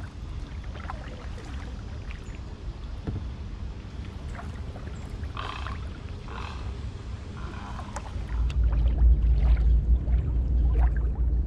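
Kayak paddle strokes in calm water: the blade dipping in, with drips and small splashes. About eight seconds in, a louder low rumble comes in and holds steady.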